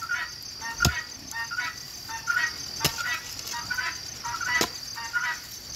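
A garden tool strikes into the soil three times, about every two seconds, as the bed is dug and loosened. Under it runs a steady high insect buzz, and a short chirp repeats more than once a second.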